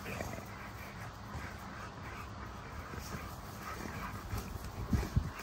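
A pack of American bully (XL pitbull) puppies and adult dogs play-fighting, with dog vocal noises and scuffling throughout. A few louder sounds come just before the end.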